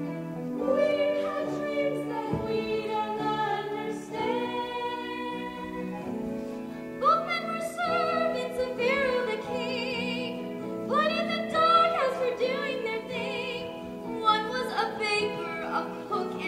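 Live musical-theatre singing with vibrato over an instrumental accompaniment.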